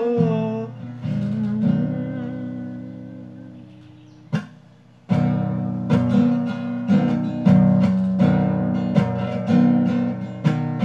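Acoustic guitar: a chord strummed about a second in and left to ring and fade, a short tap just past four seconds, then steady rhythmic strumming at about two strums a second from about five seconds on.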